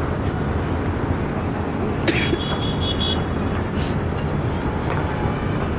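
Dense crowd noise: many people shouting together over a steady low rumble, with a short sharp crack and a brief high tone a little after two seconds in.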